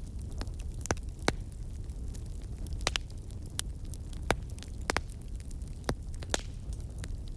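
Campfire crackling: irregular sharp pops and snaps, several a second apart, over a steady low rumble of the burning fire.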